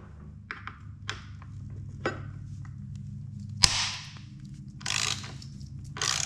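A 5 mm hex key working the front-fender bolts on a motorcycle fork: a series of small metallic clicks and short scrapes, over a steady low hum. The loudest is a sharp click a little past halfway, followed by a brief rasp.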